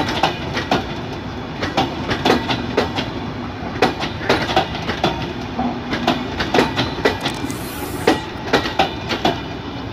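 Intercity passenger coaches of the Ekota Express rolling past, their wheels clicking and clanking over the rail joints in an irregular run of sharp clicks, several a second, over a steady rumble.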